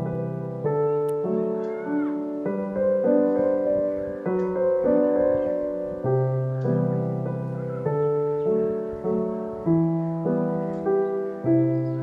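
Background piano music: gentle notes and chords struck one after another, each ringing and fading before the next.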